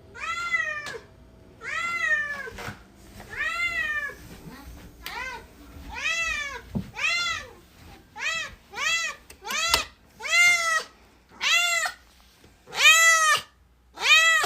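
A domestic cat meowing over and over, about a dozen meows, each rising then falling in pitch, coming quicker and louder in the second half.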